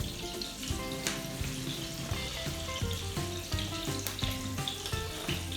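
Syrniki (cottage cheese pancakes) frying in a pan of oil, with a steady sizzle and background music underneath.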